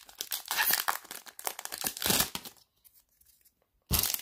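A 2000 Topps football hobby pack's wrapper being torn open by hand: crinkling and tearing for about two and a half seconds, then a short, louder rustle near the end.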